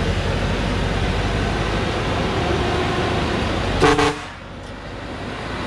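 Light truck's engine running hard as it comes up a dirt track, with one short horn toot just before four seconds in; right after the toot the engine noise drops away.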